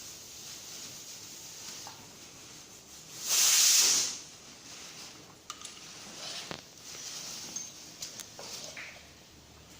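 A short blast of hissing gas, about a second long, a few seconds in, with light clicks and knocks of tools and parts being handled around it.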